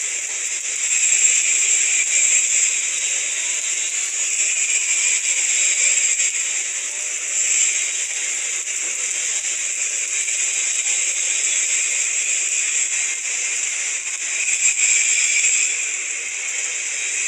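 Stick (shielded metal arc) welding with an E7016 low-hydrogen electrode: a steady, continuous crackling hiss of the arc laying the root pass on a vertical joint.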